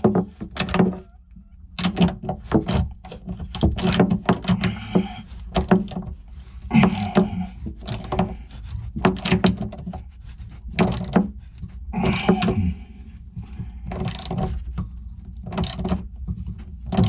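Irregular metallic clicks and clinks of steel fender washers and nylon lock nuts being handled and fitted onto bolts, over a steady low hum.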